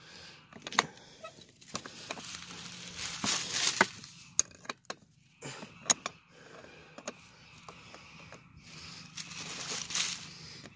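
Handling noise of tool work on a pedal car: dry leaves rustling and crunching as a hand moves through them, with a few sharp metallic clicks of a wrench against metal parts.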